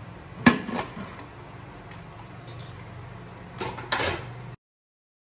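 Aluminium pressure cooker lid clanking against the pot as it is twisted open and lifted off: a few sharp metal knocks about half a second in and another cluster near four seconds, over a steady low hum. The sound cuts off abruptly shortly after.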